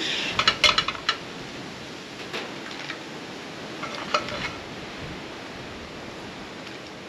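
Metal kitchen tongs clicking and clinking against a frying pan as cooked marron are picked out of it. There is a quick cluster of clicks in the first second and a few more near two and four seconds, over a steady background hiss.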